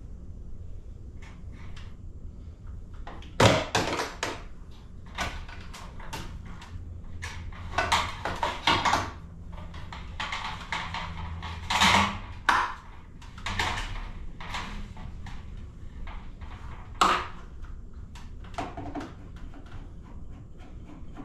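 Scattered knocks, clicks and rattles of hands working on a ceiling-mounted garage door opener's power cord and plastic parts, the loudest knock about three seconds in, over a low steady hum.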